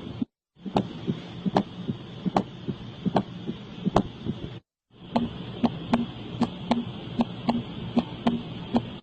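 Recorded abnormal heart sounds: a steady rhythm of sharp clicks, two to three a second, over a faint hiss. The sound cuts to silence briefly twice, shortly after the start and about halfway through.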